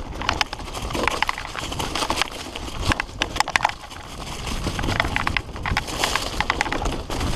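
Fully rigid Redline Monocog singlespeed mountain bike rattling and knocking over rough dirt trail at speed, a dense irregular run of sharp clatters, with wind rumbling on the helmet camera's microphone.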